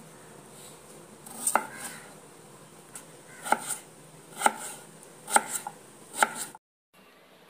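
Kitchen knife slicing through a raw potato and striking a wooden chopping board: five sharp chops, the last four about a second apart.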